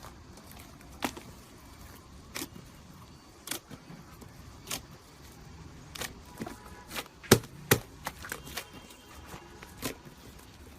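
A series of sharp clicks and crackles at irregular spacing, about one a second, the two loudest close together a little past the middle, over a low steady hum.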